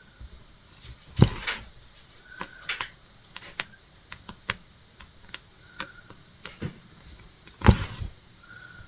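Cross-stitch needle popping through taut fabric and thread being drawn through: a series of light clicks with a few short soft swishes. Two louder knocks come about a second in and near the end.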